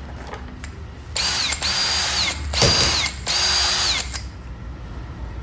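Ozito brushless cordless drill driver running free in three short bursts of the trigger, its motor whine rising quickly, holding steady, then winding down each time.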